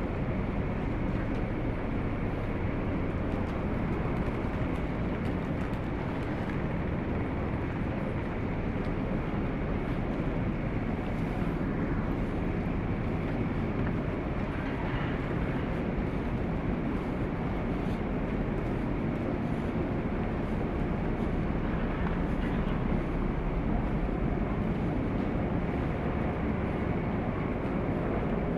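Steady, even rumble of the car ferry Oosado Maru's engines and ventilation, heard inside its passenger decks.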